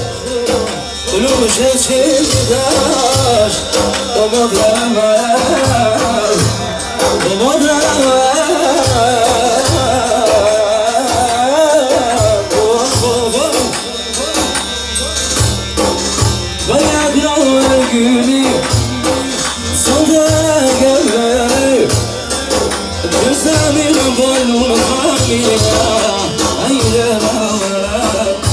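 Folk music: a wavering sung melody over a steady, evenly repeating drum beat.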